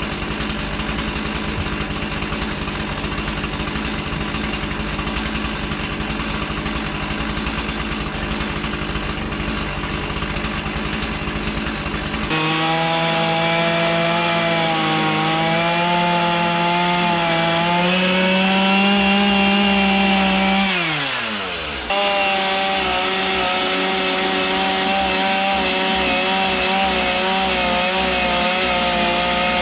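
Two-stroke chainsaw running low and rough at idle, then at about twelve seconds in switching abruptly to full throttle, its pitch wavering as the chain bites into the wood. The pitch falls away as the throttle is released about twenty seconds in, then after a sudden break the saw is back at full revs, easing off again near the end.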